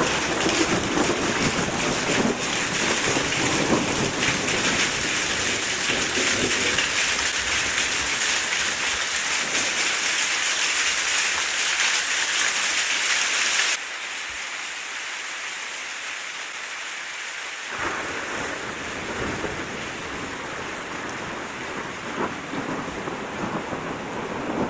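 Thunderstorm: steady heavy rain with thunder rumbling. About halfway through the rain cuts suddenly to a quieter hiss, and a few seconds later low thunder rumbles again.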